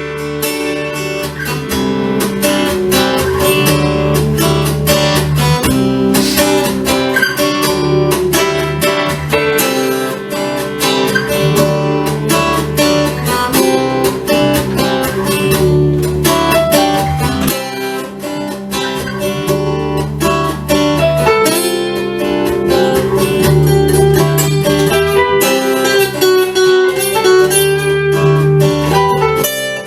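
Acoustic guitar playing an instrumental break, strummed chords mixed with picked notes over a repeating bass line.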